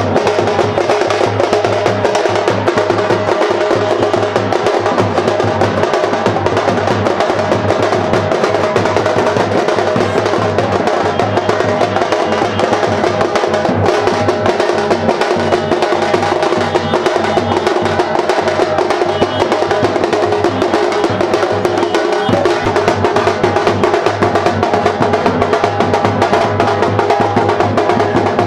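Theenmar drumming: a fast, unbroken beat of many drums struck with sticks, played for dancing.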